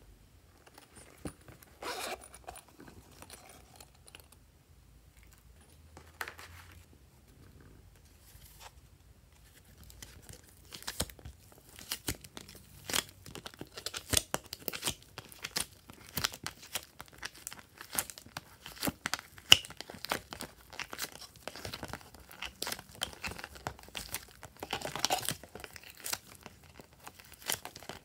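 Soft purple clay being pulled and peeled out of a thin clear plastic blister tray: the plastic crinkles and crackles and the clay tears away. Only a few rustles at first, then dense, steady crackling from about ten seconds in.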